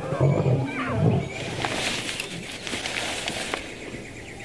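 Lions growling and snarling in a fight. A deep growl in about the first second gives way to a rougher, hissing stretch that fades toward the end.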